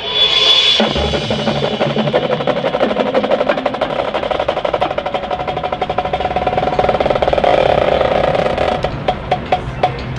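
Marching band playing loudly, coming in strongly at the start. The drumline beats out fast, dense strokes over sustained chords. Near the end it closes with a few separate, spaced drum hits.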